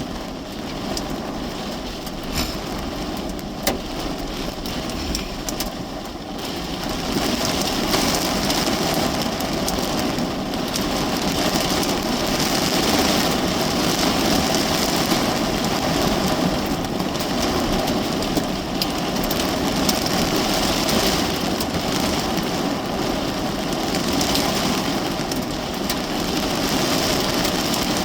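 Heavy rain beating on the roof and windows of a parked car, heard from inside the cabin. There are a few sharp single hits early on, and the downpour grows heavier about seven seconds in.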